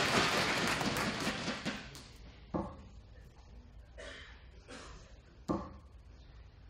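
Two steel-tip darts striking a bristle dartboard, two short sharp thuds about three seconds apart, the first about two and a half seconds in. Crowd noise fades away over the first two seconds.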